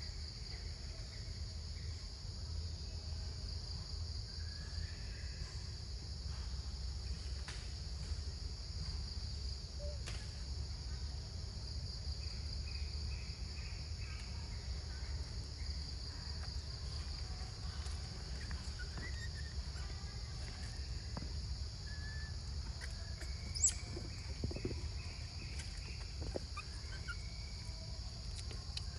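Steady high insect chorus with a faint pulse, over a low rumble, with scattered short bird chirps and one sharp click a little past two-thirds of the way through.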